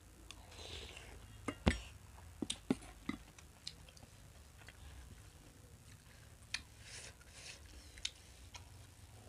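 Two people chewing food close to the microphone, with a few sharp clinks of steel spoons against stainless steel bowls, the loudest a little under two seconds in.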